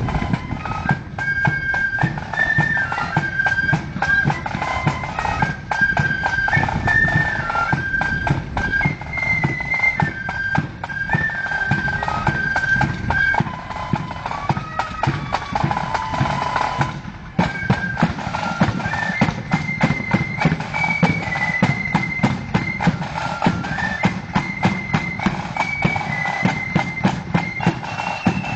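Marching flute band playing a tune on high flutes over snare and bass drums. The tune breaks off for a moment about halfway through and starts again, with steady drum beats underneath.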